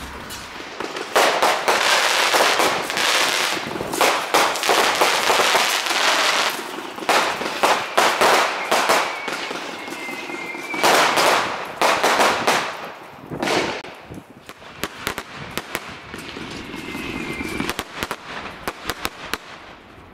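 Fireworks going off in long dense bursts of crackling and bangs, with a couple of faint short whistles, thinning to scattered sharp cracks near the end.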